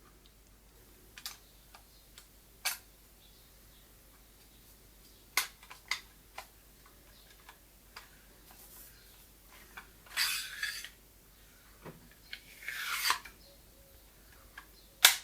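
Handling noise from a 2-in-1 pneumatic nail gun and stapler being turned over in the hands: scattered light clicks and taps, two short rubbing scrapes about ten and thirteen seconds in, and a sharp click near the end.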